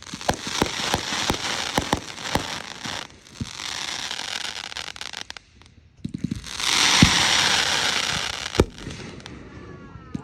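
Fireworks going off: a run of sharp pops over crackling, a short lull about halfway, then a dense burst of crackling with two louder bangs.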